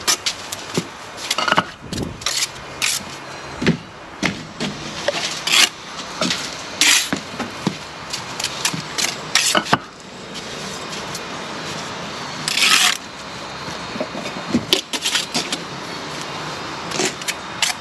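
Steel brick trowel working mortar and bricks: irregular sharp taps and scrapes of metal on mortar and brick as bricks are bedded and tapped down, with one longer scrape about halfway through.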